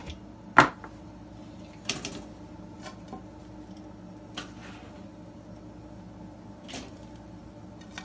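Black+Decker TRO420 toaster oven's door dropping open with a sharp clack, followed by a few lighter clicks and knocks as metal tongs touch the wire rack while toast is lifted out.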